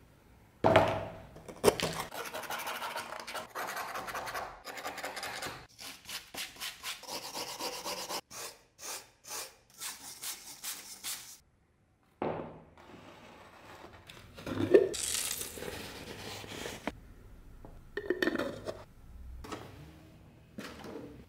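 Wire brush scrubbing the rusty steel blade of an old drawknife, with rapid back-and-forth scraping strokes to strip the rust. After a short break come a few knocks and handling noises.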